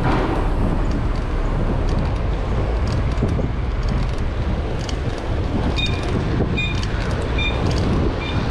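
Wind rumbling on the microphone and road traffic noise while riding a bicycle through city streets. From about six seconds in, a short two-tone beep repeats roughly every three-quarters of a second.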